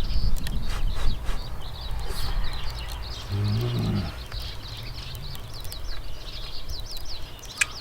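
Small birds chirping over and over, quick high notes. A low rumble comes at the start, and a short low hum a little past three seconds in.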